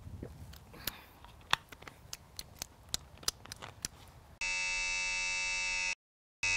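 Emergency-alert-style attention tone used as a sound effect: a loud, harsh, steady buzz that starts a little over four seconds in, drops out for about half a second and then comes back. Before it comes a quick run of small clicks, three or four a second.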